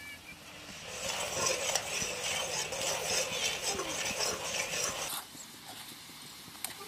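Oil sizzling and crackling in a kadhai as karonda berries fry. The sizzle swells about a second in and cuts off abruptly after about five seconds, and a single sharp click comes near the end.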